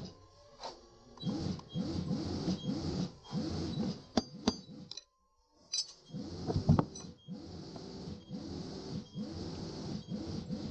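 Mini sewing machine running in repeated short pulses, with a few light metallic clinks before it stops for about a second midway, then starts again.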